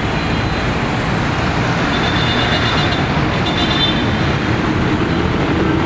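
Steady, dense road traffic noise from a busy city street, with jeepneys, buses and motorcycles running and passing.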